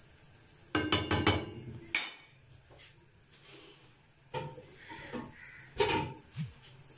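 A wooden spoon knocking against a steel cooking pot: a quick run of knocks about a second in, a sharp tap at two seconds, then a few separate knocks later on.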